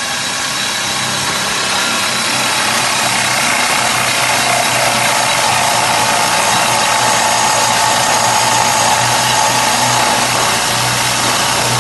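Small wood-turning lathe running under load while a drill bit in the tailstock chuck bores into the spinning wooden blank, throwing off chips. A loud, steady cutting noise over the motor's hum, building slightly in the first two seconds.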